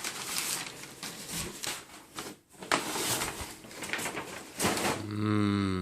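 Packaging rustling and crinkling in quick irregular bursts as a box is unpacked, then near the end a man's voice starts a low drawn-out hum.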